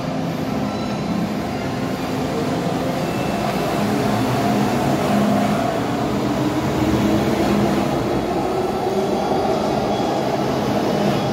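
MTR M-train electric multiple unit pulling out of a station, its running noise and motor tones steady and growing somewhat louder in the middle.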